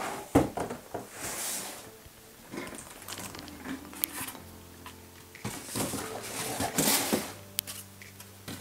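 Unboxing noise: a plastic bag rustling around a toilet seat, with scattered knocks and scrapes of the seat and packing material being handled, busiest in the second half.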